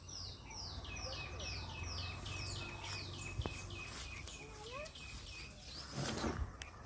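A bird calls a rapid, even series of descending whistled notes, about two and a half a second, which fades out partway through. A short rustling noise comes near the end.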